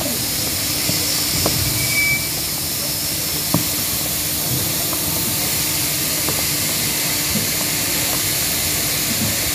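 Steady hiss of air being pumped through hoses into rubber marine airbags under a ship's hull, over a steady low machine hum, with a few faint knocks.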